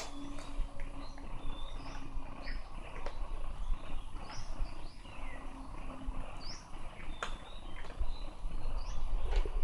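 Small birds chirping in short, high calls, one every second or so, over steady background noise.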